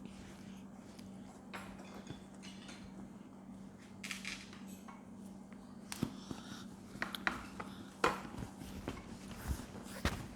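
Spoons clicking and scraping against bowls, with scattered short eating noises. A faint steady hum runs underneath.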